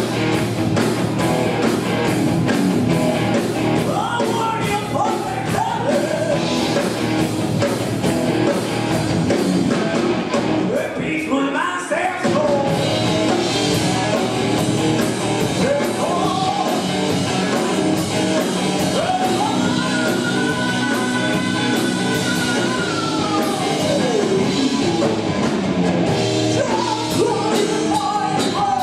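Live rock band playing a song: a singer over electric guitar, bass guitar and drum kit, with a long held note about twenty seconds in.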